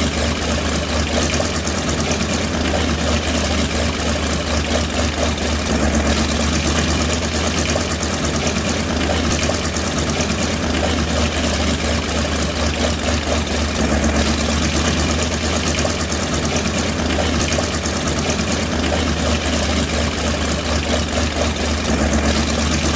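Floatplane's propeller engine running steadily at constant speed: a continuous low drone with rapid firing pulses, with no rise or fall in speed.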